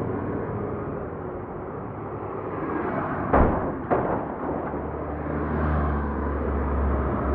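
Two sharp bangs about half a second apart over a steady rumbling noise.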